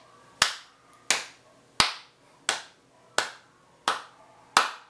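One person clapping slowly and evenly, seven claps about 0.7 seconds apart, each trailing off briefly in the small room.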